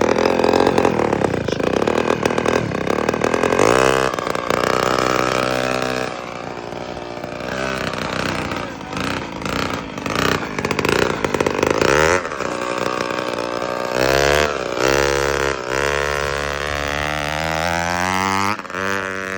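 Small straight-piped scooter engine, muffler cut off, running really loud and revving up and down again and again, the pitch climbing steeply near the end.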